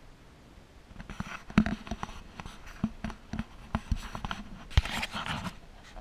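Irregular knocks and clicks with short rustling, splashy patches, starting about a second in: a paddle and gear knocking against a plastic kayak while it is paddled.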